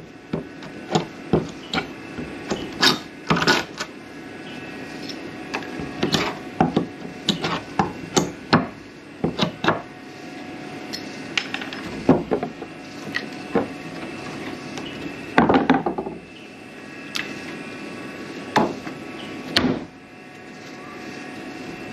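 Timber deck boards being pried and knocked loose with hand tools: irregular wooden knocks and clatters, some in quick runs, with a longer scrape about two-thirds of the way through.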